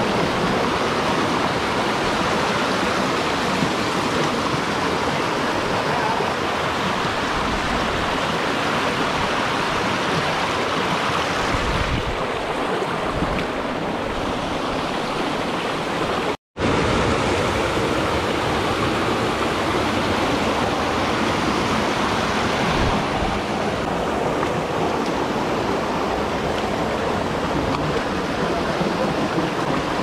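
Rushing water, a loud, steady rush with a brief dropout to silence a little past halfway.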